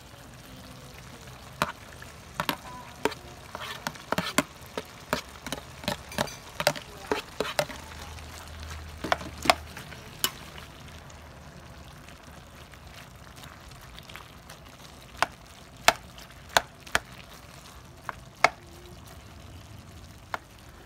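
A spatula clacking and scraping against a metal pan while stirring octopus and shredded banana heart over a low, steady sizzle. Quick irregular knocks come often in the first half, pause, then a handful more near the end.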